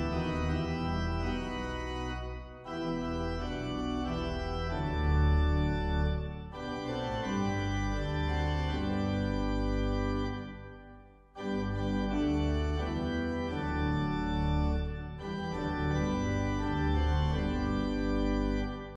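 Organ playing slow, sustained chords in phrases of a few seconds each, with short breaks between phrases, fading out near the end.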